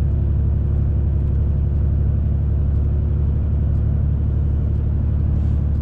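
Volvo semi-truck's diesel engine pulling steadily up a long climb in a low-range gear, a steady low drone.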